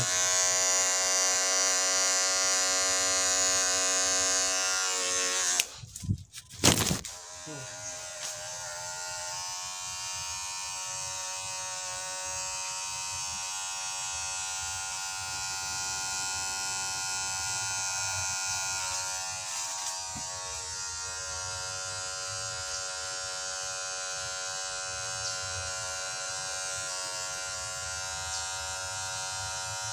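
Electric hair clipper buzzing steadily as it trims the hair at the back of the neck. About six seconds in the buzz breaks off for a moment with a few sharp clicks, then runs on more quietly.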